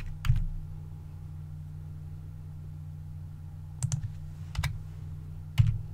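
A few separate clicks from a computer keyboard and mouse: one about a quarter second in, a quick pair near four seconds, another soon after, and a louder one near the end, over a steady low hum.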